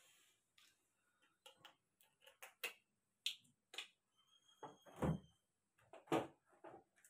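Faint, irregular clicks and knocks of stainless steel kitchenware being handled on a cutting board, with a short metallic ring about five seconds in.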